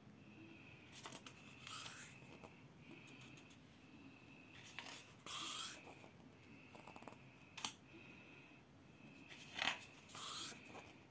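Pages of a paperback book being turned and smoothed by hand: soft paper rustles and swishes, with a sharp snap of a page about seven and a half seconds in and the loudest swish near the end.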